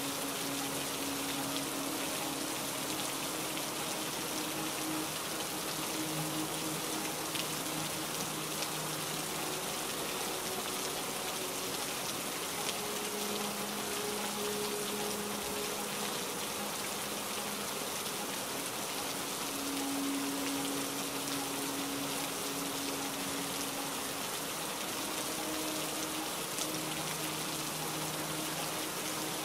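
Steady heavy rain falling, an even hiss of raindrops, with soft held music notes underneath that shift pitch every few seconds.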